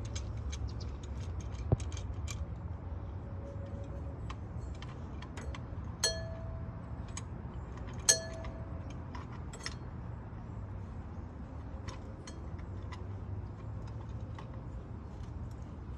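Metal tools and brake parts clicking and clinking during hand work on a truck's brakes, with two sharp ringing metal clinks about six and eight seconds in, over a steady low hum.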